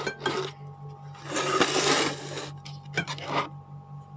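Rustling and rubbing as hands handle things on the table close to the microphone. There is a longer burst about a second and a half in with a sharp click in it, and a shorter one about three seconds in. A steady low hum runs underneath.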